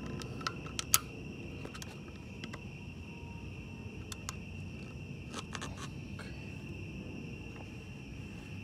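A few light, sharp metallic clicks of a screwdriver and small bolt knocking against metal under the car, the loudest about a second in, over a steady high-pitched tone and low background hum.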